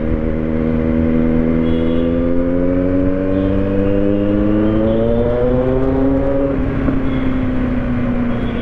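Kawasaki Z900's inline-four engine pulling under throttle, its pitch rising slowly for about six seconds, then dropping back as the throttle eases and running steadily, with wind noise on the microphone.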